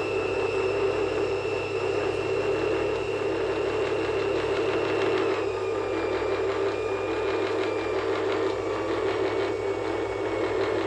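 A steady machine-like drone with a low hum underneath and faint thin high tones that shift about five seconds in.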